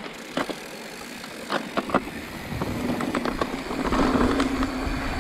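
Mountain bike rolling down a dirt and rock-slab trail: tyre noise with knocks and rattles from the bike over the bumps. About three seconds in, a louder rush of wind on the microphone and a steady hum join as the bike picks up speed.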